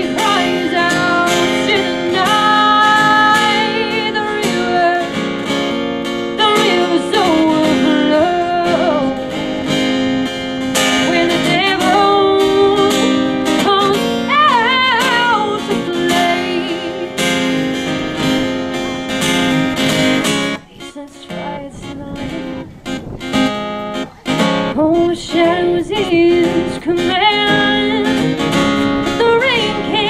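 A woman singing a folk song over a strummed acoustic guitar. The music dips briefly about two-thirds of the way through, then carries on.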